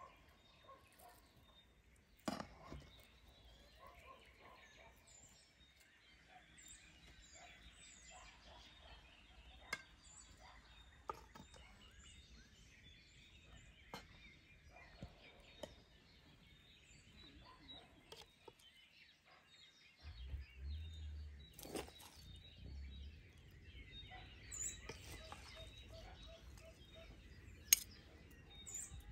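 Quiet outdoor ambience with faint birds chirping throughout, broken now and then by the sharp clink of metal utensils against plates and a serving tray.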